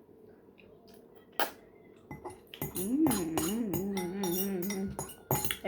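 A woman humming a wavering, tuneful 'mmm' with her mouth full while eating, with short chewing and mouth clicks around it. A single sharp click comes about a second and a half in.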